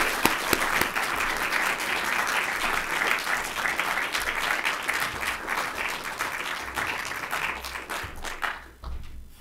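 Audience applauding, many hands clapping together, thinning out and stopping near the end.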